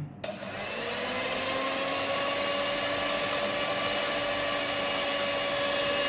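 Electric hand mixer switched on, its motor winding up over about a second to a steady whine, beaters whipping matcha powder, sugar and hot water into dalgona foam in a glass.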